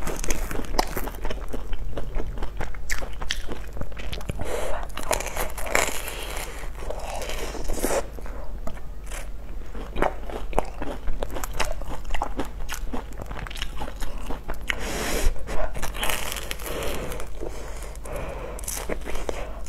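Close-miked biting and chewing of a crispy breadcrumb-coated fried bun with a soft red bean paste filling, a dense run of crunchy crackles and clicks.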